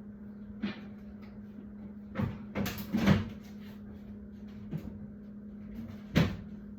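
Several short, sharp knocks and clunks of objects being handled, the loudest about three seconds in and another near the end, over a steady low hum.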